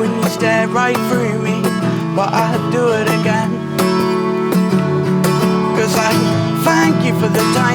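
Acoustic guitar playing an instrumental passage of a folk-pop song, strummed chords with a melody line that slides in pitch over them.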